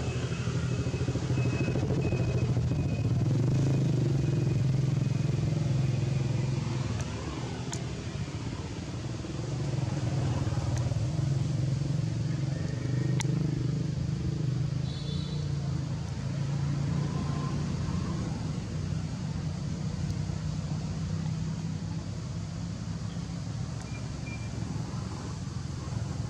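An engine running with a steady low drone, louder for the first six seconds, dipping briefly, then rising again about ten seconds in. A few brief high squeaks sound over it.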